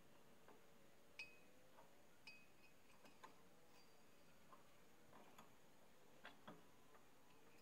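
Near silence broken by about a dozen faint, scattered metallic clicks and taps from hand tools and parts in an excavator's engine bay during repair work, the clearest about a second in.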